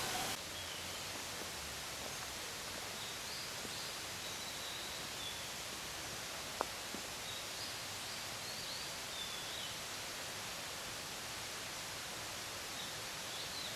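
Forest ambience: a steady hiss with faint, high bird chirps now and then, and one sharp click about halfway through.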